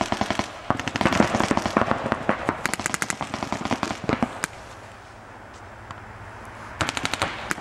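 Paintball markers firing in rapid strings of sharp pops, dense for the first few seconds, then a lull, and another quick burst near the end.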